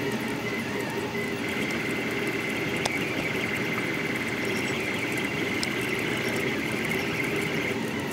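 Delta Rostock 3D printer printing at a high speed setting: its stepper motors make a steady high whine over a rough whirr. A faint click about three seconds in.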